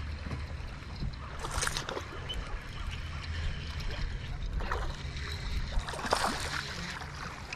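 Water splashing in a few short bursts, a hooked bass thrashing at the surface as it is fought beside the boat, over a steady low rumble.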